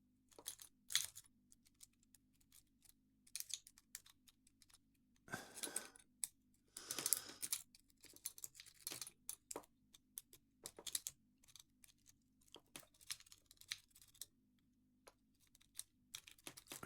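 Lock pick rake scrubbing in a padlock's pin-tumbler keyway: several short bursts of rapid metallic clicking and scraping with scattered single clicks between them, the lock not opening.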